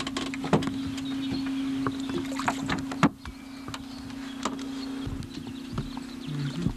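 Knocks and clunks of handling on a bass boat's deck over a steady low hum, with a loud sharp click about three seconds in where the old home-video recording cuts.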